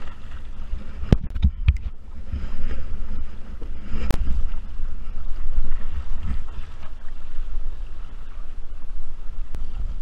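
Wind buffeting an action camera's microphone, with choppy water splashing and sloshing around a wingfoil board and wing. A few sharp knocks, about a second in and again around four seconds in.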